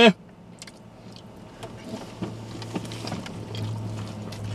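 Two people biting into and chewing burritos: scattered small wet mouth clicks and wrapper rustles. Under them is a steady low hum inside the car that grows a little louder about three seconds in.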